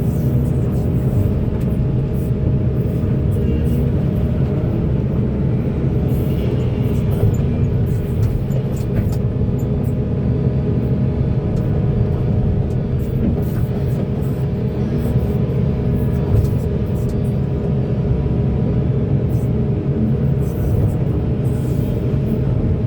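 Diesel engine of a large hydraulic excavator running steadily under load, a continuous low drone.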